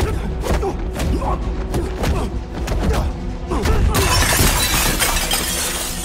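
Fight-scene sound effects: a quick run of punch and block impacts, then, about four seconds in, glass shattering for about two seconds as a fighter is thrown into a glass display cabinet. Film score music plays underneath.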